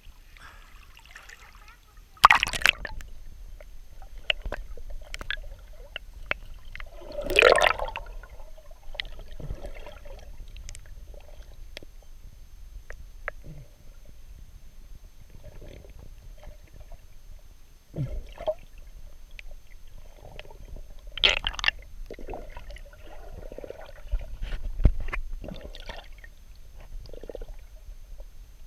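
Water sloshing and gurgling around an action camera as it is carried through the water by a swimmer, with irregular short splashes; the loudest come about two seconds in, around seven and a half seconds, and near twenty-one seconds.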